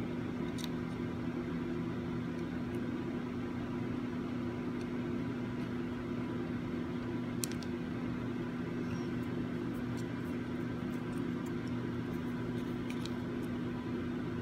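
Steady low mechanical hum from a motor or fan, with a few faint light clicks.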